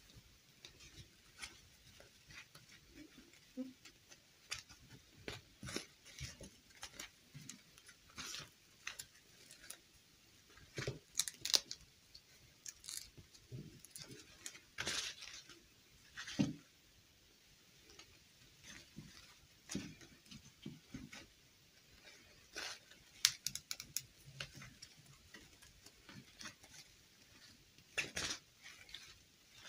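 Quiet, irregular rustling of a fabric doll dress and light taps of a plastic fashion doll as hands work the dress onto the doll.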